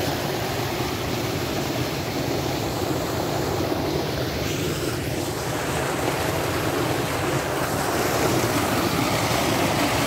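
Steady rushing of water gushing from a tubewell's outlet pipe into a brick tank.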